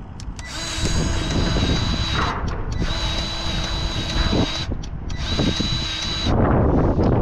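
Battery-powered grease gun motor whining in three bursts of a second or two each, pumping grease into a hydraulic breaker. Near the end the whine stops and a louder, rough crackling noise takes over.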